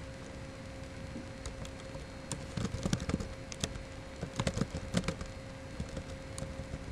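Typing on a computer keyboard: irregular keystroke clicks in short runs, with pauses between words, over a faint steady hum.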